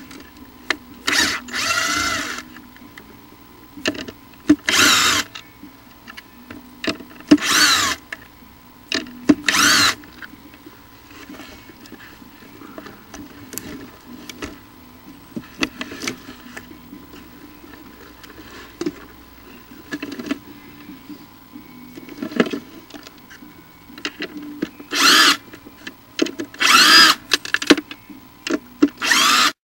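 Loud handling noise right at the nest camera as it is worked on and cleaned: a series of scraping, squeaking bursts about a second long, with a wavering squeal in each. Four come close together in the first ten seconds and three more near the end.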